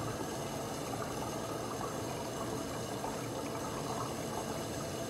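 Steady watery rushing noise, even and unbroken.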